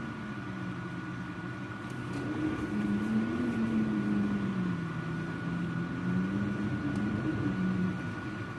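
Storm wind howling: a low moan that wavers up and down in pitch, swelling about two seconds in and easing near the end, over a steady faint high hum.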